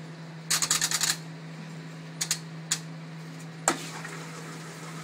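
Clicks from the controls of a Kenmore front-loading washing machine being switched on and set: a quick run of about eight clicks, then a few single clicks, the last one the loudest.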